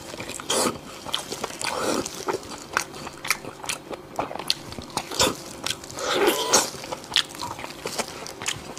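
Close-miked biting and chewing of a piece of glazed roasted meat held in gloved hands: many short, sharp crackly clicks from the crisp skin, mixed with wet mouth and chewing noises.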